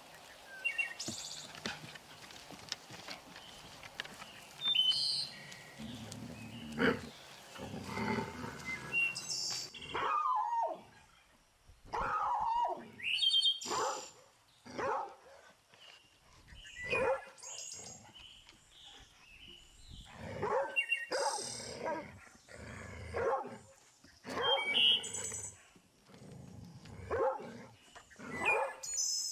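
A Belgian Malinois vocalizing in a string of short bursts, about one a second, starting about a third of the way in. Small birds chirp above it.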